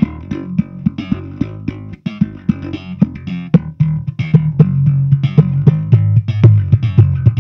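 Fender Precision electric bass played through an Earthquaker Devices Spatial Delivery envelope filter into a Fender Bassman amp and 4x10 cabinet: a quick run of plucked notes, each with a wah-like filter sweep. The pedal's range knob is being turned, and the notes grow fuller and louder in the low end about halfway through.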